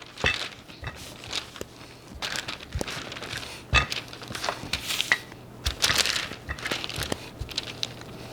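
Crinkling and rustling of a thin sheet, plastic wrap or baking paper, as chilled cookie dough is handled for rolling out, with scattered light knocks.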